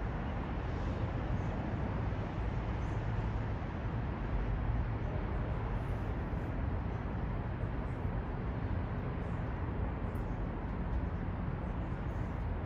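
Steady city ambience: an even, low rumble of distant traffic with no single event standing out.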